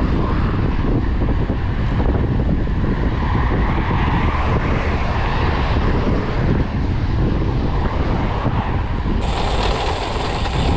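Wind rushing over the microphone and tyre noise of a road bike riding along the road, a steady loud rumble; the hiss turns brighter suddenly about nine seconds in.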